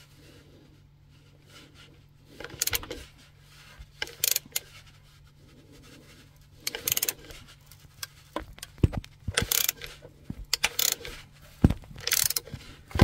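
Scattered metallic clinks, clatter and rustling of a hand tool being unpacked and handled, the clicks coming thicker in the second half, over a faint steady low hum.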